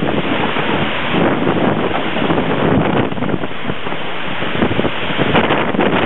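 Storm-force thunderstorm wind gusting through trees, with driving rain, buffeting the microphone: a loud, dense rush that swells and eases with each gust.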